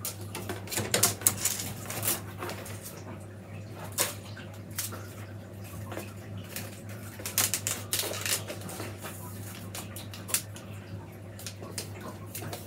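Willow rods rustling and clicking against each other as they are bent and wound into a wreath hoop, with scattered sharper knocks, the clearest about a second in, at four seconds and near the middle. A steady low hum runs underneath.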